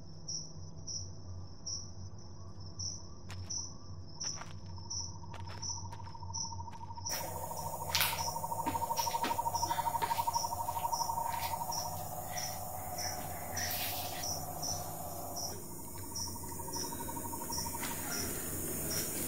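Crickets chirping: a high chirp repeats about twice a second, and a lower rapid trill joins about five seconds in and stops near the end. A few faint clicks sound over it.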